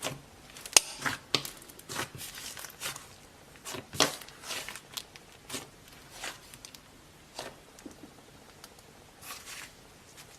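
Slime being squeezed and worked by hand, giving irregular sticky clicks and pops, the loudest about a second in and about four seconds in.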